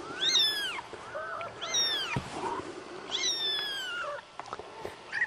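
High-pitched kitten mews: about five short, arching calls, with a longer one a little after three seconds that falls in pitch.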